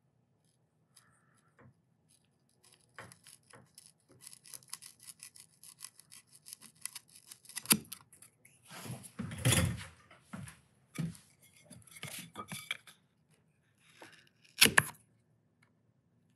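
A freshly sharpened chisel, honed to 3000 grit on water stones, is pushed by hand through the end grain of a softwood stick. Fine crackling scrapes of wood fibres being sliced come first, then a few louder scrapes and snaps. The loudest is a longer scrape about halfway through, and a sharp one comes near the end.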